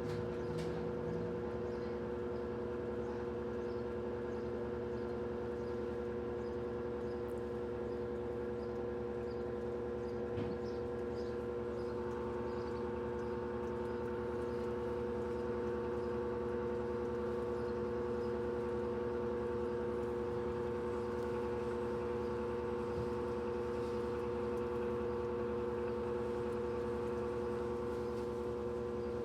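Electrolux LED14 washing machine in its spin cycle: the motor and drum running at a steady speed, a constant whine of a few steady tones over a low hum. About twelve seconds in a higher tone joins and it gets slightly louder.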